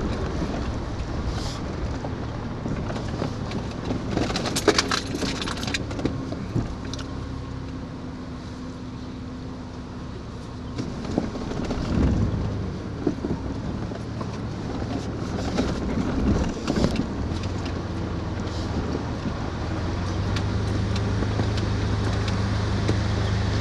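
A vehicle running, a steady low hum, with rattling and clinking about five seconds in and again later.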